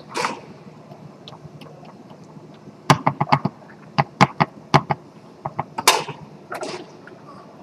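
Foosball being played on a Tornado table: sharp clacks of the ball being struck by the plastic men and knocking against the table. A quick run of clacks comes about three seconds in, more follow, and two louder hits with a short ring come near the end.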